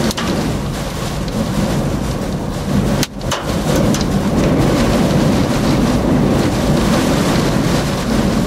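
Violent storm winds with driving rain battering a vehicle, a loud steady rush with a brief sudden dip about three seconds in. The winds are over 100 mph, taken by the chaser for strong rear-flank downdraft winds of a multivortex tornado.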